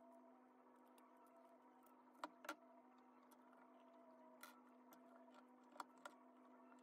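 Near silence with a steady faint hum, broken by a few faint, sharp clicks of a small screwdriver and small metal parts being handled on a miniature metal car chassis.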